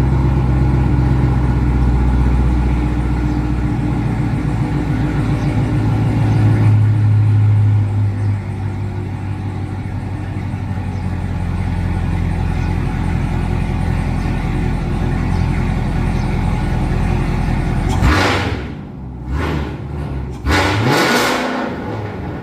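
Cadillac CT5-V Blackwing's supercharged 6.2-litre V8, breathing through an aftermarket downpipe and Corsa cat-back exhaust, running at a steady note that swells about 6 to 8 seconds in. Near the end the steady drone drops away and three short, loud bursts follow.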